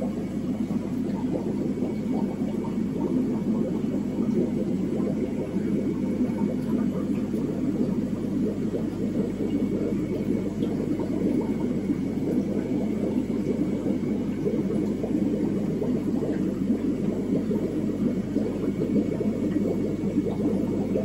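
Steady low rumble of aquarium filtration: air bubbling through sponge filters over a constant low hum.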